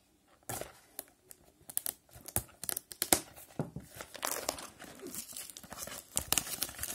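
Clear plastic shrink-wrap being torn off a cardboard trading-card box and crumpled in the hand. It makes irregular crackling and tearing that starts about half a second in.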